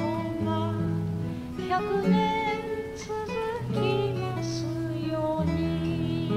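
Acoustic guitar playing a slow ballad accompaniment of held bass notes and chords, with a woman singing the melody over it.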